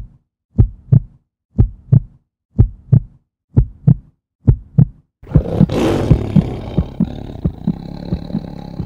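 Produced intro sound effects: a heartbeat of deep double thumps, about one pair a second. About five seconds in, a loud rushing roar starts, with booming hits inside it.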